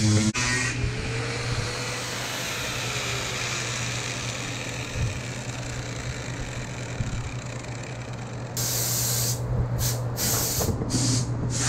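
Angle grinder with a sanding disc running steadily, grinding down the fibreglass of a boat transom. About three-quarters of the way in, a run of short, loud hissing blasts starts.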